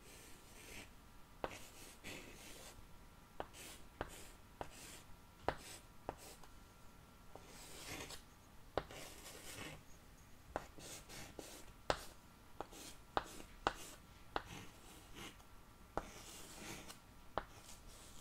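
Pen writing on paper close to the microphone: soft, faint scratching strokes with scattered sharp clicks.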